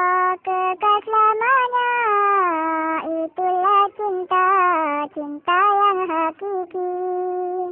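A high voice singing a slow melody without clear words, in long held notes that slide between pitches, with short breaks for breath; it cuts off suddenly at the end.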